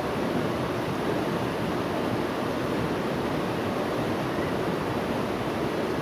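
Steady rushing of a shallow river running over rocks and rapids, even throughout with no distinct events.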